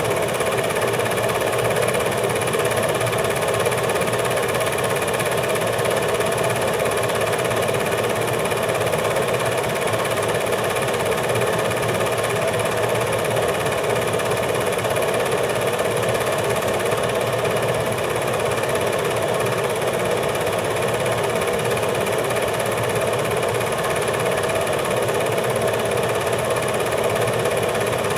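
8mm film projector running with a steady, unchanging mechanical whir.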